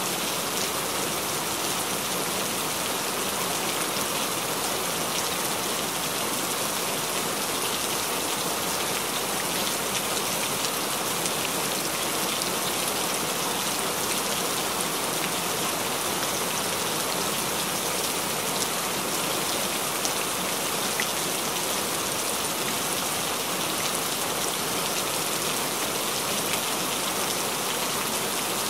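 Recorded rain falling steadily: an even hiss with a fine patter of drops, unchanging throughout.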